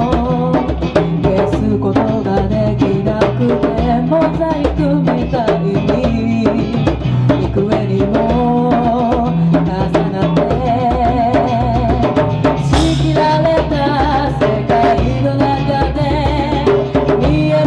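A woman sings lead over acoustic guitar and hand percussion, played live, with frequent sharp drum strikes keeping the rhythm.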